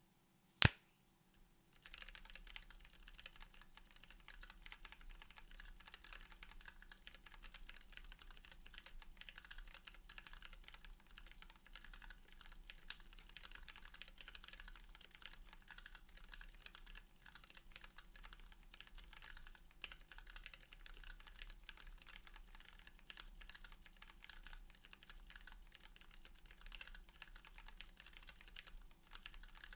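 Steady typing on a Mechmini2 mechanical keyboard with a brass plate, lubed linear switches (Tealios stems in Cherry MX Black housings) and PBT keycaps: quick, even key presses and bottom-outs. A single sharp click comes just under a second in, and the typing starts about two seconds in.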